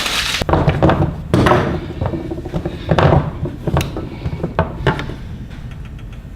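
Hand tools, wire strippers, being handled and set down on a hard surface: rustling bursts and several sharp clicks and knocks.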